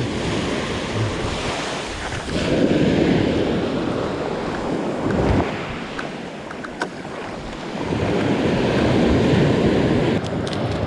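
Sea waves breaking and washing up a beach, swelling twice, about two seconds in and again about eight seconds in, with wind buffeting the microphone.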